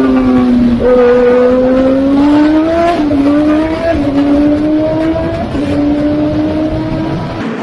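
Brabham-BMW Formula 1 car's 1.5-litre four-cylinder turbo engine at full throttle, climbing in pitch and dropping back sharply at each of about three upshifts, then holding a steadier note.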